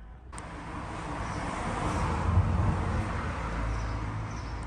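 A road vehicle passing as an even rush of noise with a low hum underneath, swelling to its loudest about two seconds in and then slowly easing.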